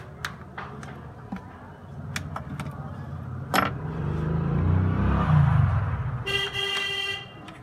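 Small clicks of plastic clips as a phone's housing is prised apart, with a sharp snap about three and a half seconds in. Then a passing vehicle's low rumble swells and fades, and a vehicle horn sounds briefly near the end.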